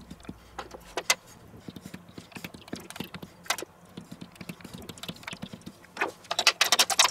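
Scattered light ticks from a small spice jar being shaken over a chicken in a stainless steel tray. About six seconds in, a dense burst of metallic rattling as a wire rotisserie holder is picked up.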